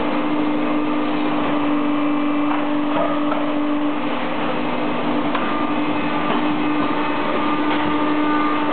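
Metalmeccanica 270T injection moulding machine, with others in the hall, running: a steady machine hum with one strong low tone over a hiss of factory noise. A few faint clicks come and go.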